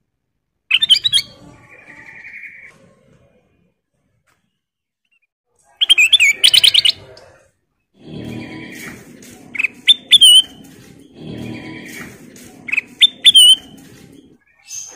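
Kutilang emas bulbul singing in bursts of sharp chirps and whistled notes. There is a short phrase about a second in, another around six seconds, then a longer run of song with repeated rising whistles over the last several seconds.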